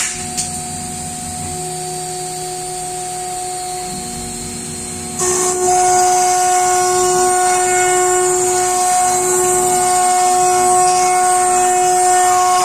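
CNC router spindle cutting wood: a steady high-pitched whine over a hissing cutting noise. About five seconds in it gets louder and stays louder.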